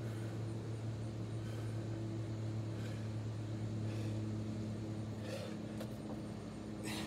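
A steady, low mechanical hum with a few fixed pitches runs throughout. Two brief, soft hissing sounds come near the end as the exerciser drops to the ground in a burpee.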